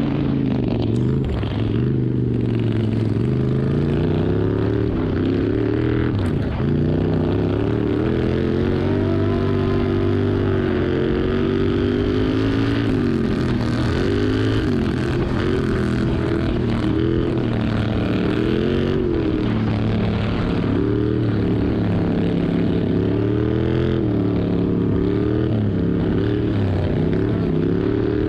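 Racing ride-on lawn mower's engine heard from the driver's seat, running hard, its pitch rising and falling again and again as the throttle is opened and eased around the dirt track.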